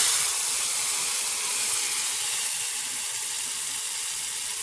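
Spice masala frying in hot oil in a kadhai: a steady, loud sizzle that slowly eases off.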